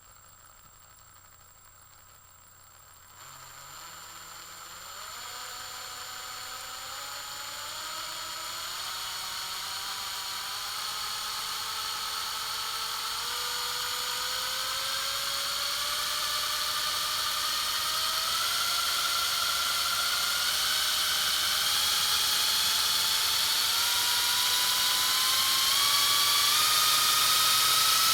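Drill motor accelerating: a faint steady hum at first, then from about three seconds in a whine that climbs slowly in pitch and grows steadily louder.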